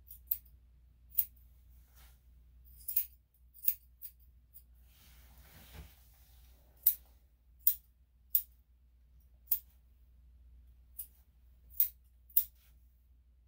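Grooming scissors snipping through a dog's coat: a dozen or so sharp, quick snips at uneven intervals, with a brief soft rustle about halfway through.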